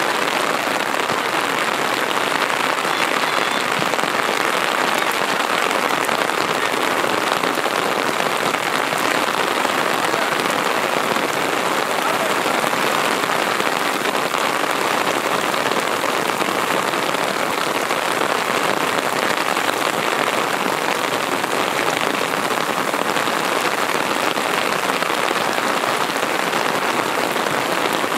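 Heavy rain pouring down: a steady, dense hiss with no let-up.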